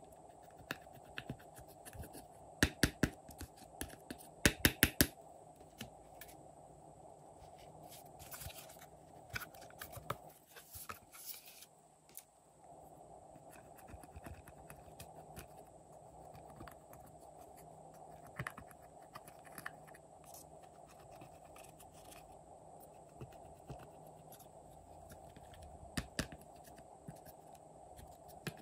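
Pressed eyeshadow being scraped and dug out of a plastic palette with a small tool: scratchy scraping broken by quick runs of sharp clicks and taps of the tool against the palette.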